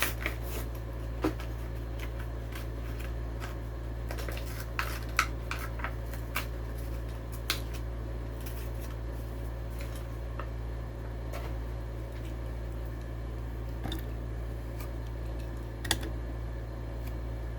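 Scattered clicks and crinkles of a Hot Wheels package, plastic blister on a card, being opened by hand, a few sharper snaps among them, over a steady low hum.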